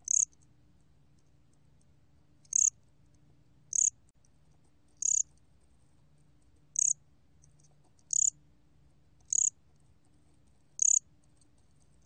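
A 곰귀뚜라미 cricket calling at 23 °C: eight short, high-pitched chirps, each about a fifth of a second long and spaced about a second and a half apart, over a faint low hum.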